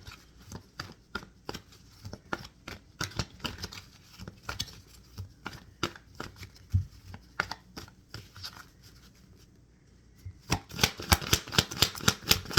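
Tarot cards being handled and shuffled. Scattered light clicks and flicks of cards give way, about ten and a half seconds in, to a fast, even run of card taps, about four a second.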